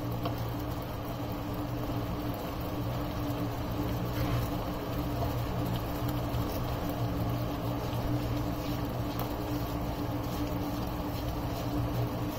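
Steady low hum of a kitchen appliance, with faint scrapes and ticks of a plastic spatula stirring a thick tomato-cream sauce in a non-stick pan.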